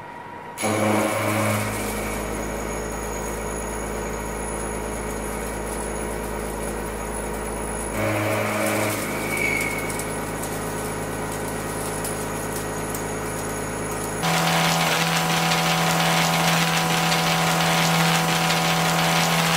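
CNC milling machine cutting steel: an R335.25 disc milling cutter plunging into a steel block, a steady machine sound with a low hum and a high whine, which breaks off and resumes about eight seconds in. About fourteen seconds in it changes abruptly to a louder, hissier cut by a cylindrical milling cutter in steel.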